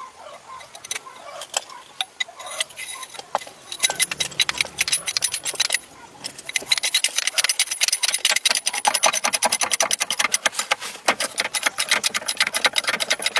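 Fast mechanical clicking and rattling: scattered clicks at first, becoming a dense, even run of many clicks a second about halfway through.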